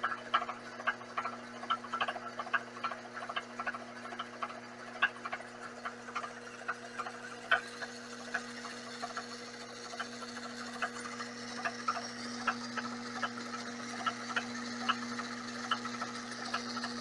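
Vevor 7x14 mini lathe running with a steady hum and irregular sharp ticking, a few ticks a second: a noise whose cause the owner has not been able to find.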